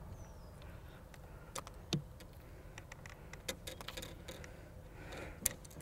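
Scattered light clicks and taps of an angler handling a freshly landed largemouth bass and his gear on a bass boat, over a low steady rumble.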